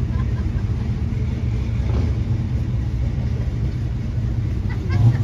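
Steady low rumble of car engines as cars drive slowly past.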